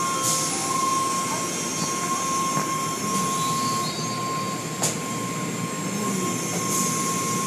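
Automatic car wash tunnel at work: water jets spraying and wash equipment running over a passing car, a steady rushing noise with a constant high whine. A single sharp knock about five seconds in.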